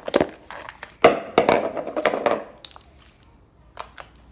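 Hands squeezing and kneading a big mixed batch of slime with foam beads in it, giving wet clicking and crackling pops as air pockets burst. The crackling is densest and loudest from about a second in, then thins to a few clicks near the end.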